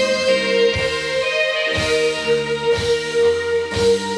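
Thai dance-band music: a keyboard holds a long sustained note over changing bass notes, with a low drum hit about once a second.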